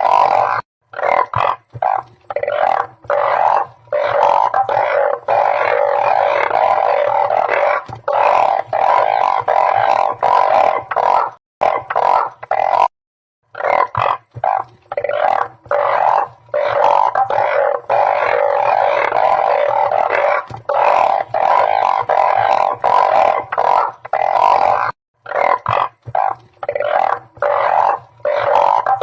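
Chorus of blunt-headed burrowing frogs (Glyphoglossus molossus) calling: many low, droning calls overlapping, broken by short gaps, with a complete dropout of about half a second around the middle.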